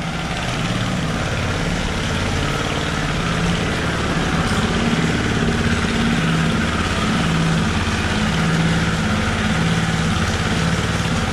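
Gasoline engine of a power trowel running steadily during the final finishing pass on a fresh concrete floor, with a constant wavering drone.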